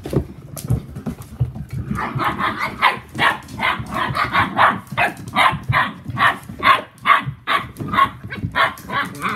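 A whippet barks over and over in a steady run of about two to three barks a second, starting about two seconds in. Before the barking there are low scuffling thumps from puppies wrestling on a rug.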